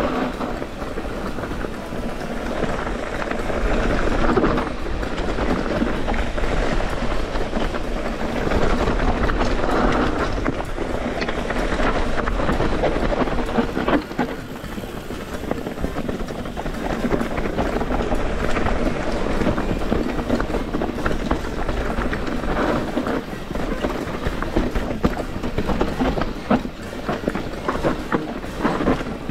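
Rocky Mountain Instinct full-suspension mountain bike descending rocky singletrack: tyres crunching over stones and leaf litter while the bike rattles with a steady stream of small knocks, over a continuous low rumble.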